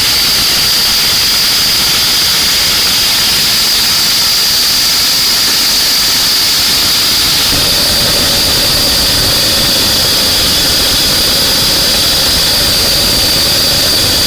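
Homemade jet engine spinning on a constant compressed-air jet in its inlet while a very rich fuel mixture burns in its combustion chamber: a loud, steady rushing hiss with a high, steady whine. About halfway through a lower tone joins in and holds.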